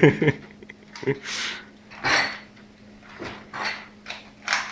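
A jammed toy gun being handled to clear it: a handful of separate plastic clicks and rattles, a second or so apart.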